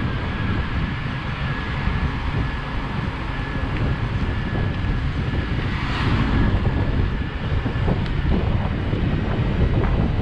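Wind buffeting the microphone while riding an e-bike at speed, a dense low rumble, with a faint steady high whine through the first half and a slight rise in loudness after about six seconds.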